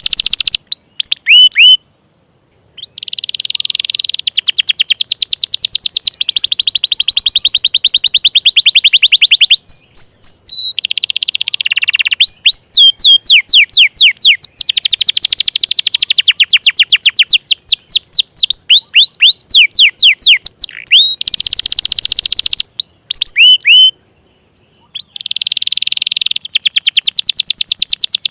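Domestic canary singing: long runs of very fast trilled notes and quick sweeping whistles, broken by two short pauses.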